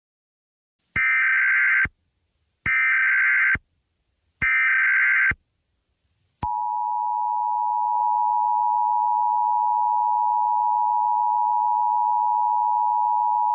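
Emergency Alert System header: three short bursts of SAME digital data, about a second each, then the steady two-tone EAS attention signal starting a little past six seconds in.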